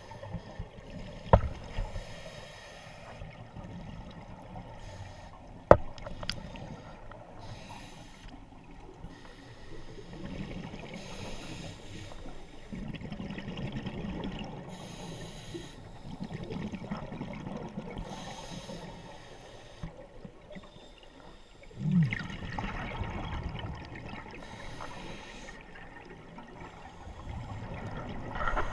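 Scuba diver breathing underwater through a regulator: recurring hissing inhalations alternate with bubbling exhalations. Two sharp knocks come in the first six seconds, and a louder gush of bubbles comes about 22 seconds in.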